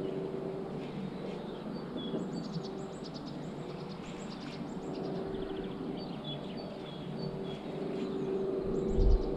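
Small birds chirping in short, repeated calls over a steady outdoor background noise with a faint hum, and a low rumble near the end.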